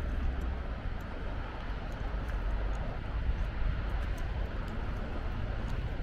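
Steady rumbling noise of a car driving: road and wind noise with a deep low rumble.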